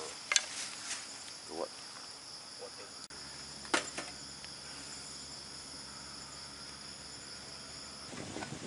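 Crickets chirring steadily in the background. About three and a half seconds in comes a single sharp clink: an aluminium mess tin is set down on the steel top of a wood stove.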